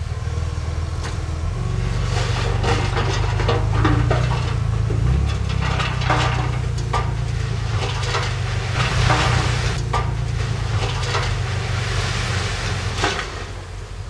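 Heavy earthmoving machine's diesel engine running under load, with repeated metallic clanks, knocks and scraping of dirt and rock as it works. The engine steps up about a second and a half in and eases off near the end.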